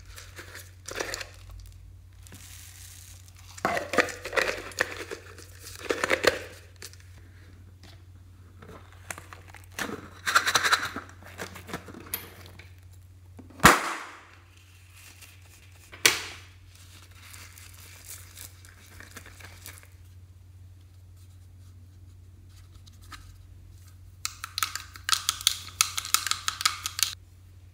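Hands handling hollow plastic toys and foam beads over a tray of slime: separate bursts of rustling and crinkling, two sharp clicks in the middle, and a quick rattling patter near the end. A steady low hum sits underneath.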